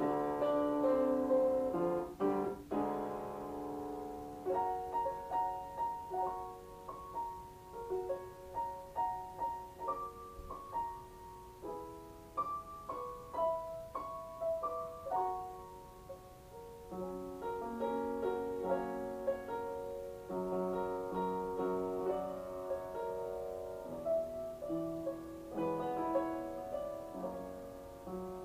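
Background piano music, a melody of separate notes and chords.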